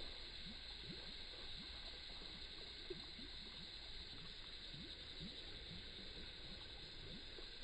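Faint, irregular bubbling and gurgling as a soft-plastic frog lure's kicking legs churn the water surface on a steady retrieve, several small blips a second, over a steady high hiss.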